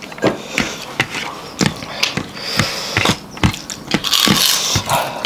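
Close-miked eating: chewing and lip-smacking as a rapid run of irregular wet clicks, with a couple of short hissing sounds, one near the middle and one near the end.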